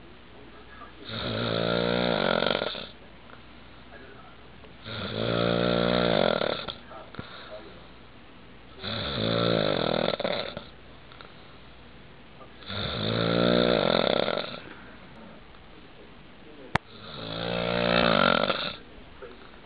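A man snoring: five long snores of about two seconds each, one every four seconds or so, with a single sharp click just before the last.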